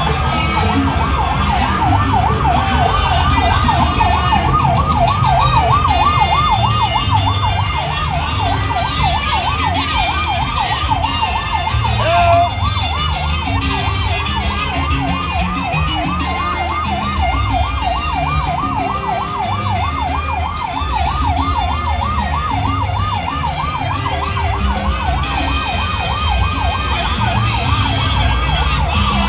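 A siren in a fast yelp, its pitch wavering up and down about five times a second without a break, over a low rumble of traffic and crowd.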